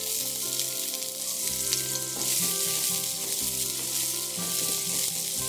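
Chopped shallots sizzling as they fry in hot coconut oil: a steady, dense hiss with a few faint ticks. Soft background music plays underneath.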